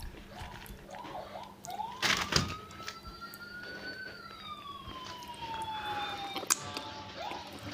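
A siren-like wail, its pitch rising slowly for about two seconds and then falling, over shorter rising-and-falling chirps. A few sharp clicks cut in, the loudest about two seconds in.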